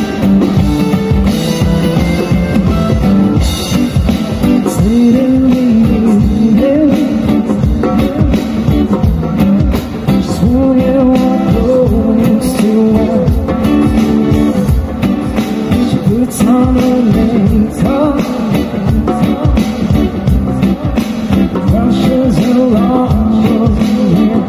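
Background music: a song with a sung melody over instruments and a steady beat.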